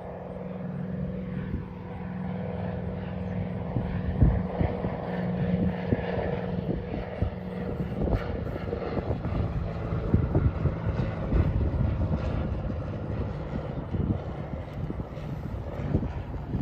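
Propeller airplane engine running with a steady drone during a touch-and-go.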